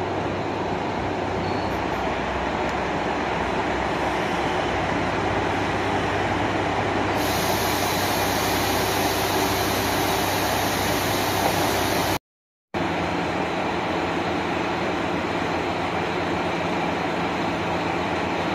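KiHa 185 diesel railcar rolling slowly into the platform and stopping, its diesel engines running throughout. About seven seconds in a steady high hiss joins the engine sound for several seconds, then the engines idle on steadily.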